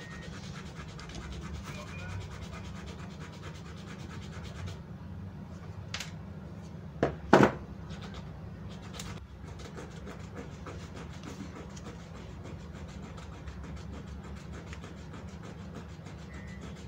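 Faint scraping and small clicks of pliers working the bearing lock ring out of an angle grinder's gear housing, with two sharp clicks close together about seven seconds in, over a steady low hum.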